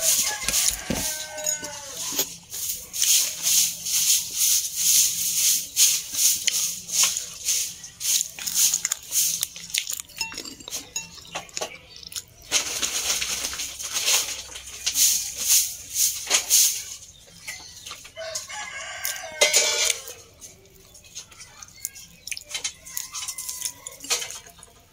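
Close-up crunchy chewing of fried dried fish (bulad) and rice, a rapid run of crisp clicks. A rooster crows in the background near the start and again about 19 seconds in.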